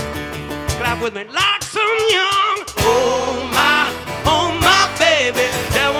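Live rock band playing: a male lead vocal sung with wavering pitch over acoustic and electric guitars and drum and percussion hits. The band fills out with more low end about three seconds in.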